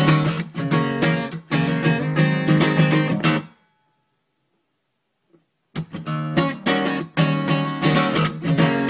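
Acoustic guitar strumming chords in a steady rhythm. It breaks off abruptly about a third of the way through, falls silent for about two seconds, then resumes.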